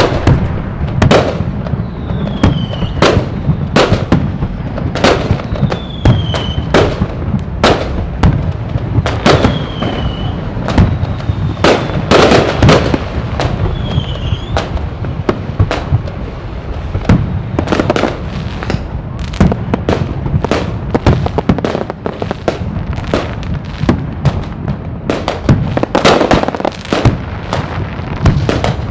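A fireworks display: a dense, irregular run of bangs and cracks going off one after another over a steady low rumble. A few short whistles falling in pitch sound in the first half.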